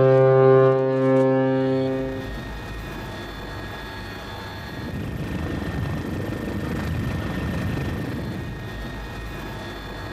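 The icebreaker Shirase's horn sounds a long, steady blast as it leaves port and cuts off about two seconds in. A steady helicopter rumble follows.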